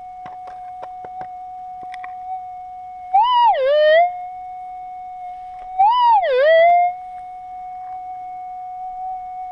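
Metal detector's steady threshold hum, broken twice, about three and six seconds in, by a loud target signal that swoops up in pitch, dips below the hum and settles back: the detector sounding off on a small gold nugget. A few faint clicks in the first couple of seconds.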